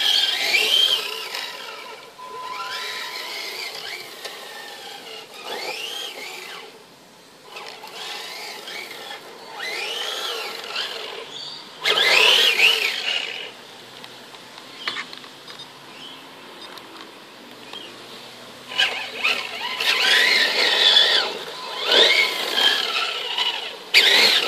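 Electric motor of a radio-controlled TXT-1 monster truck whining as the throttle is blipped, its pitch rising and falling in bursts with quieter pauses between, busiest near the end.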